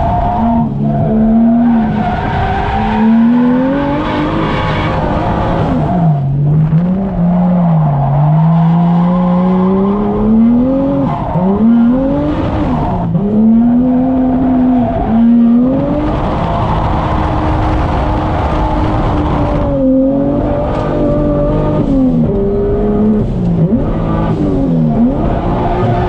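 Toyota 1JZ VVTi inline-six in a Nissan 240SX S13 drift car, heard from inside the cabin, revving hard with its pitch climbing and falling over and over as the throttle is worked, with several sudden drops. Tyres squeal as the car drifts.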